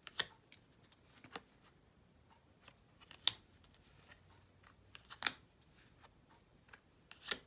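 Linen-finish Lenormand cards being handled and flipped through: about five short, sharp card snaps a second or two apart, with faint rustling between them.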